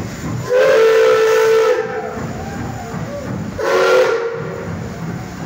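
Whistle of the Er 799-18 steam locomotive sounding for departure: a long blast, then a short one about two seconds later, over the hiss of escaping steam.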